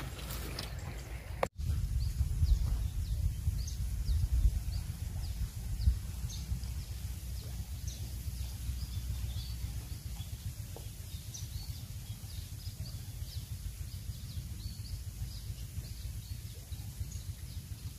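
Birds chirping, short high calls repeated throughout, over a gusty low rumble of wind on the microphone that is strongest in the first few seconds. The sound drops out for a moment about a second and a half in.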